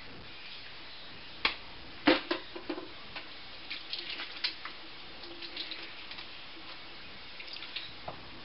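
Kitchen food-preparation handling sounds: a few sharp knocks about one and a half and two seconds in, then scattered light clicks and taps.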